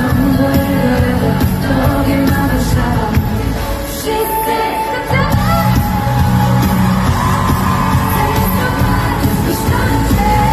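Live pop song played through a concert PA and heard from the crowd: a woman sings over the full band. About four seconds in the bass and drums drop out for roughly a second, then come back in.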